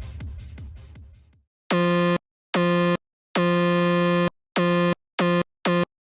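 Synthesized hardcore kick drum repeating about three times a second, each hit a fast downward pitch sweep, fading out in the first second and a half. Then a raw, buzzy synth tone at one steady pitch is played seven times in short notes of uneven length, each starting and stopping abruptly.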